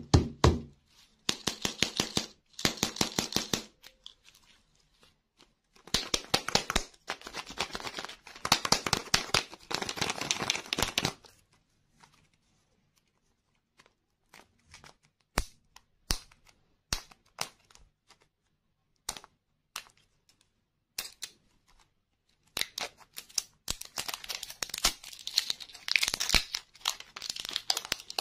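Plastic candy packaging crinkling and tearing as a novelty lollipop's wrapper and label are peeled off and its plastic egg case is handled, in several dense bursts. In the middle stretch there are only scattered small clicks and ticks.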